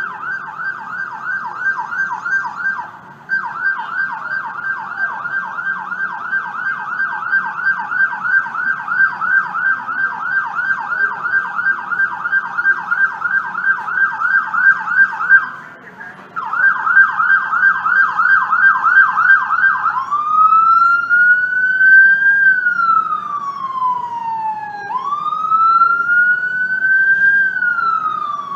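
Ambulance electronic siren on a fast yelp, a rapid up-and-down warble with two short breaks, switching about twenty seconds in to a slow wail that rises and falls about every five seconds. Traffic noise runs underneath.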